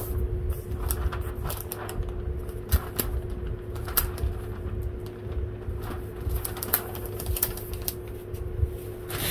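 A steady hum with scattered light clicks and taps.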